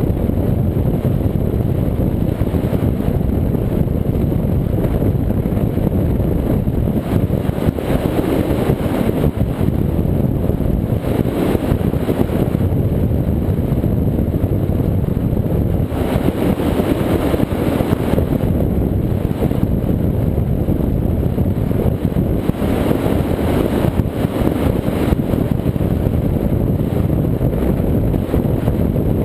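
36-foot Cigarette Gladiator offshore powerboat running at high speed: a steady, loud low rumble of its engines mixed with the rush of water and wind over the hull. The rushing noise swells for a second or two several times, around the middle and later on.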